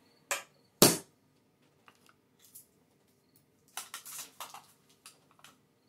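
Two sharp taps about half a second apart, the second the louder, then soft plastic crinkling and a few light ticks as a wrapped trading card is handled and unwrapped.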